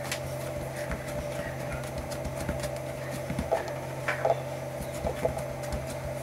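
Hands pressing and handling soft bread dough on a floured metal worktop, with a few short taps and slaps as the dough is patted and lifted from about three to five seconds in, over a steady low hum.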